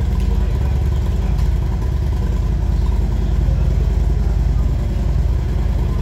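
Harley-Davidson V-twin motorcycle engine idling through its exhaust, a loud, steady low pulsing beat.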